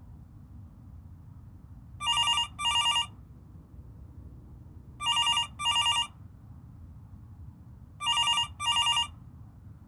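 Telephone ringing with an electronic double ring: three double rings about three seconds apart, each a pair of short warbling tones.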